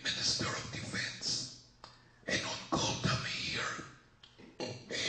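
A person's voice speaking in short phrases with brief pauses between them.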